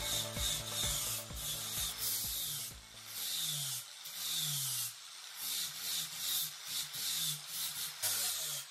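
Electric rotary sander-polisher with a sanding disc grinding across the resin-coated surface of a fibreglassed surfboard around the fin plugs. The abrasive hiss comes and goes in strokes as the disc is pressed on and eased off.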